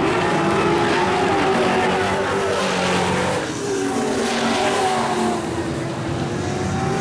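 Engines of several dirt-track race trucks running hard at once as the pack laps the oval. Their overlapping pitches keep sliding up and down as the trucks go through the turns and down the straights.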